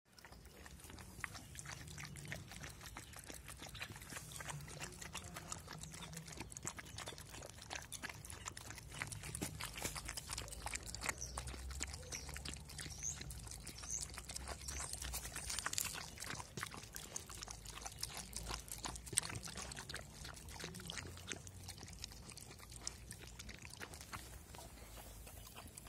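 Two puppies licking and lapping up a thick white food from a tray: a quiet, steady run of wet smacking clicks.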